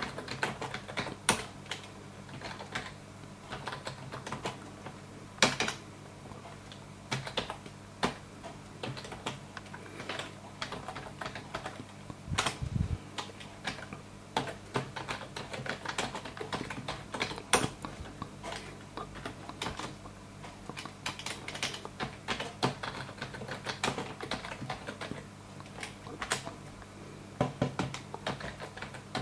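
Typing on a computer keyboard: irregular keystrokes in bursts with short pauses, over a steady low hum. One dull low thump comes about halfway through.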